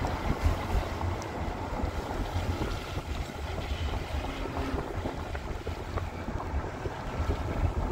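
Steady rushing noise with a heavy, fluttering low rumble: wind buffeting the microphone.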